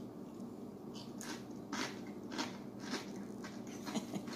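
A man chewing a mouthful of crunchy-crusted cornbread: crisp crunching chews, roughly two a second from about a second in, a chomping like horses on their feed.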